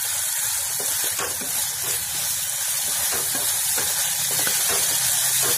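Diced potatoes, cauliflower, onion and tomato sizzling in hot oil in a wok as a wooden spatula stirs them, with a few faint scrapes of the spatula against the pan over a steady frying hiss.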